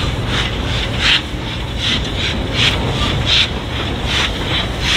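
LMS Royal Scot class 46100's three-cylinder steam engine working slowly, giving short puffs of steam about twice a second over a low rumble. Wind buffets the microphone throughout.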